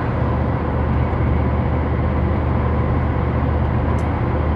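Steady road and engine rumble of a vehicle driving at highway speed, heard from inside the cabin, with a faint small click about four seconds in.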